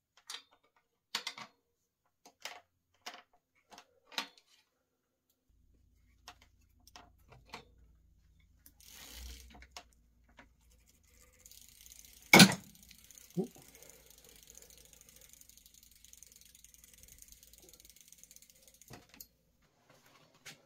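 Sharp metal clicks from a wrench on a bicycle's rear axle nut as it is tightened, about eight of them spaced irregularly over the first four seconds. About twelve seconds in comes a single loud knock, followed by a steady high hiss for several seconds.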